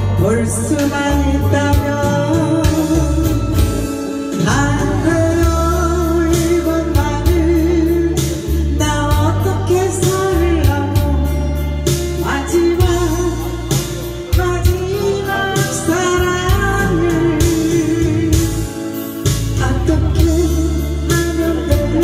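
A woman singing a Korean trot song live into a microphone, accompanied by an acoustic guitar over music with a steady bass and beat.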